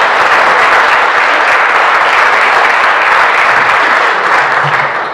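Audience applauding, a dense spread of hand claps that eases off near the end.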